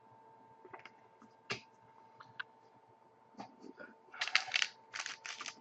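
Trading cards being handled, with a few light clicks and taps. From about four seconds in comes loud crinkling as a card pack's wrapper is torn open.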